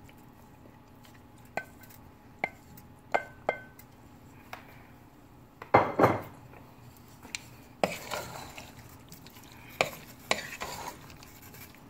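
A wooden spoon pushes chopped cooked chicken off a plastic cutting board into a pot, knocking sharply against the board and pot several times. Near the middle the chicken slides into the pot all at once with a louder rush. Then the spoon stirs the chicken through the soft cooked vegetables, scraping with light clicks.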